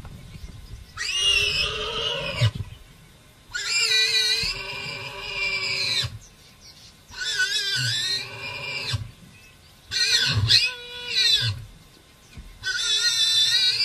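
Warthog piglet squealing in distress, about five long, high, wavering squeals with short pauses between, as it is caught by a lion. A few dull low thuds come between the squeals.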